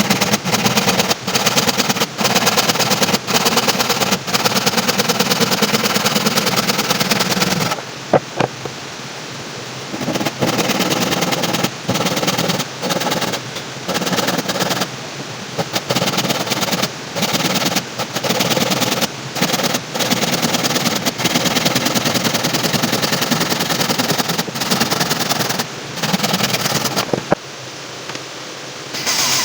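Power tool running with a rapid rattle, stopped and started in short spurts about a second apart for much of the time.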